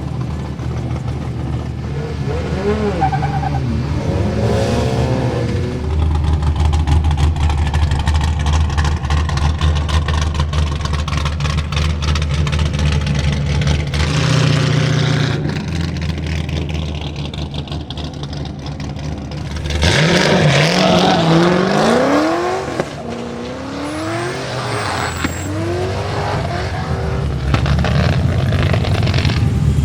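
Chevrolet LS7 7.0-litre V8 in a drift-built Nissan 200SX pickup, running hard at high revs. About two-thirds of the way through it revs sharply, followed by several quick rising revs.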